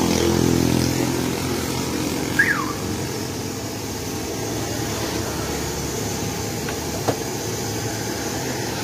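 Passing street traffic: a motorcycle engine hums and fades in the first second, leaving a steady traffic noise. A short falling squeak comes about two and a half seconds in, and a small click near the end.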